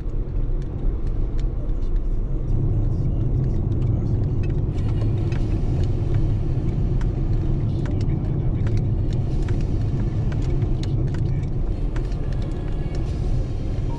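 Car driving, heard from inside the cabin: a steady low rumble of road and engine noise, with scattered faint clicks.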